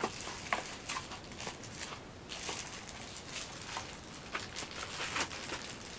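Scattered light clicks and taps, irregularly spaced, of kitchen knives and their blade covers being handled and set down.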